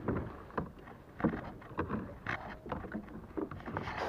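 Pedal-drive fishing kayak being pedalled: a string of short knocks and clunks from the pedals and hull, about two a second, over a faint wash of water.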